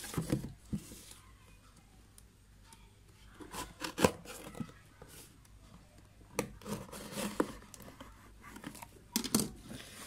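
A cardboard parcel sealed with clear packing tape being opened by hand: the tape slit and torn, with crinkling and rustling handling noises and a sharp knock about four seconds in.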